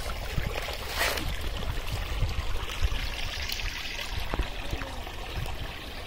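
Shallow water running and trickling through a fine-mesh fishing net in a small channel, with a brief louder splash about a second in and small handling knocks as the net and a plastic colander are worked.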